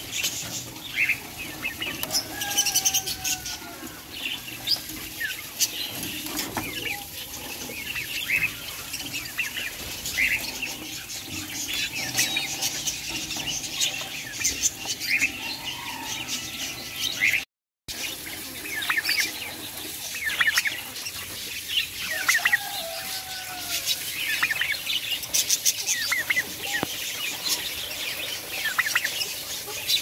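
Many caged birds chirping and calling, with short high chirps overlapping throughout and a few lower, drawn-out calls that slide in pitch. The sound cuts out for a moment just past halfway.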